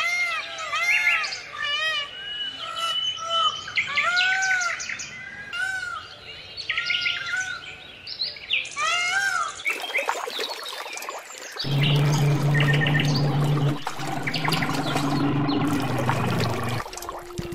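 Small birds chirping and tweeting in quick, repeated arched calls for about the first ten seconds. Then the sound cuts abruptly to a dense, noisy wash with a low, steady droning tone through most of the rest.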